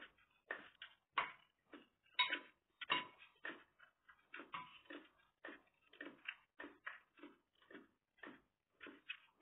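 Close-up eating sounds: a metal spoon working food in a small bowl and chewing, in short separate sounds about two to three a second.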